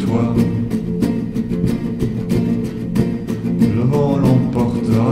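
Classical nylon-string acoustic guitar played with the fingers: an instrumental passage of steady, rhythmic plucked chords and notes.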